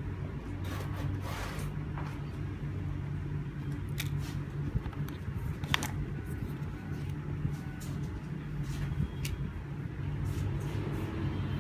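Scattered small clicks and crackles of a smashed iPhone 6 Plus and its loose parts being handled, over a steady low hum.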